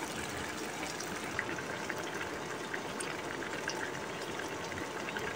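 A pan of instant noodles simmering in broth: a steady bubbling hiss with small scattered pops.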